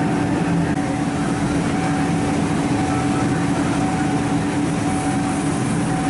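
Steady mechanical drone of an engine running and a shop heater going, with a constant low hum and a higher whine held throughout.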